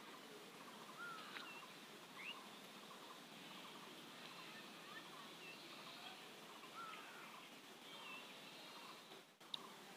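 Near silence: faint background hiss with scattered short bird chirps, and a small click near the end.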